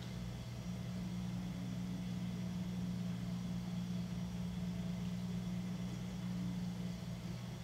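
Potter's wheel motor running with a steady low hum while a 9 kg clay jar turns on the wheel head.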